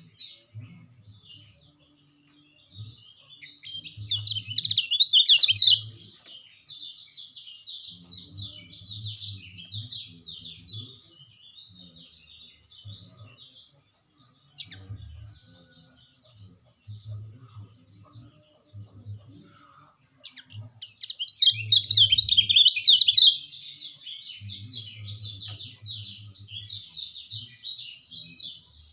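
Lemon-bellied white-eye (kecial kuning) singing a rapid, high twittering chatter, swelling into two loud bursts about four seconds and twenty-one seconds in. A steady thin high tone runs underneath.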